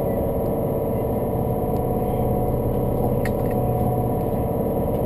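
Steady hum of a stopped electric train's onboard equipment, with one light click about three seconds in.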